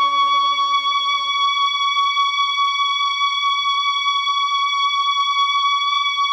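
Closing passage of a band's song: a single high, electronic-sounding note held steady, while the lower parts of the music fade out over the first few seconds.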